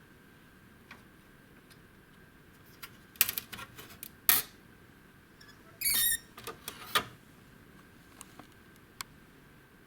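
Clicks, knocks and a short rattle of hardware being handled, bunched in the middle few seconds, over a faint steady high whine.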